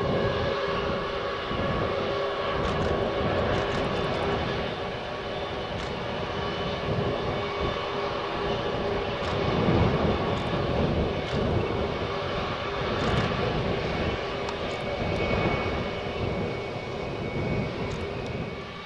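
Airbus A320's IAE V2500 turbofans at takeoff thrust during the takeoff roll: a steady jet roar with a whining fan tone, swelling a little about halfway through as the aircraft passes.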